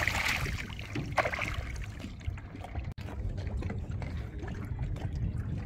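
Water lapping and trickling against the hull of a small fishing boat, over a steady low rumble. There are short splashy noises at the start and about a second in.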